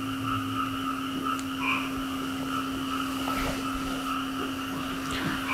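Frogs croaking in a steady chorus of repeated calls, with a few louder notes standing out. A steady low hum runs underneath.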